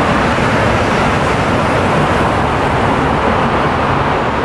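Steady road traffic noise: an even wash of passing vehicles, with no single vehicle or event standing out.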